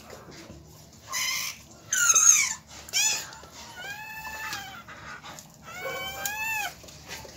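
Newborn Siberian husky puppies crying in a series of high, thin squeals that arch up and down, the loudest a falling squeal about two seconds in, after a brief noisy rustle about a second in.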